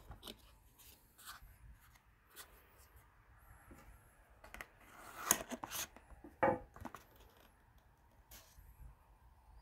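Cardboard perfume box being handled: the outer sleeve slid off and the inner box's flaps opened, giving scattered scrapes, rustles and light taps, the loudest a little past halfway.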